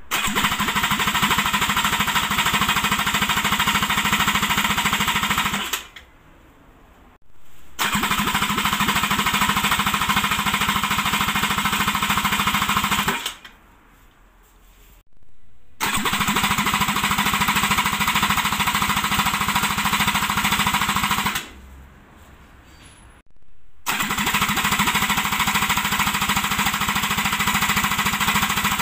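Kawasaki Ultra 260X supercharged four-cylinder four-stroke engine spun on its electric starter with the plugs out for a compression test. It cranks in four bursts of about five seconds each, with short pauses between, each burst a fast, even churning.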